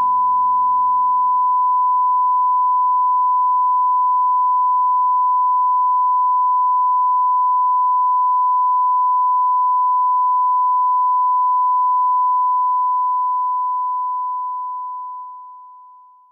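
A single steady electronic pure tone, like a test beep, held unbroken at one high pitch and fading away over the last few seconds. Soft ambient music dies out beneath it in the first second or two.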